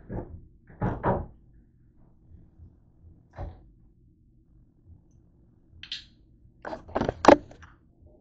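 Kitchen door or cupboard being opened and shut, with items knocked about on the counter: a few separate thuds, a brief higher clatter about six seconds in, and a cluster of the loudest knocks about seven seconds in.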